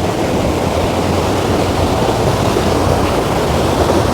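Stream water rushing steadily below a footbridge, a loud, even noise of running water.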